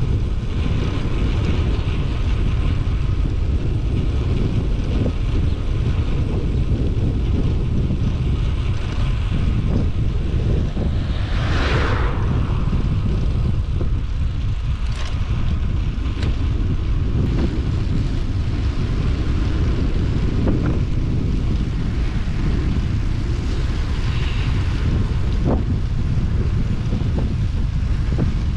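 Wind buffeting a GoPro action camera's microphone on a moving road bike, a steady heavy rumble. There is a brief brighter swell about twelve seconds in.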